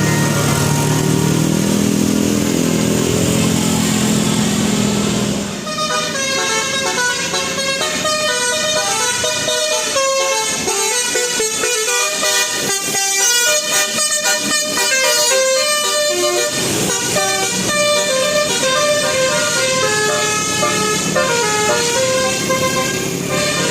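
Bus telolet basuri horn, a set of electric air-horn trumpets, playing a fast melody of short stepped notes from about six seconds in, after a few seconds of a lower, denser horn-and-engine sound.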